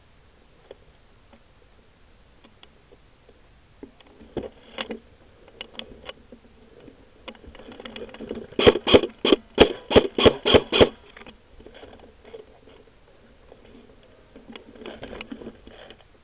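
Dry leaves and grass crunching and scraping as the gun and its mounted camera move through leaf litter on the ground. About halfway through comes a quick run of about a dozen loud crunches, roughly five a second, then softer rustling near the end.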